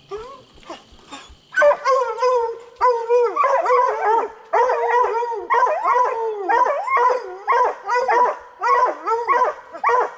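Coon hounds barking over and over at the tree, a steady run of loud chop barks about two a second, sometimes overlapping, starting about a second and a half in: the sound of dogs treed on a raccoon.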